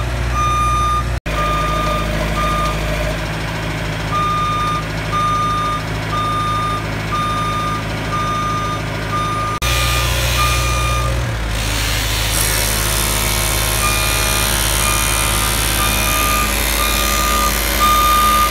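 JLG telescopic boom lift's motion alarm beeping about once a second, with short pauses, over its engine running steadily.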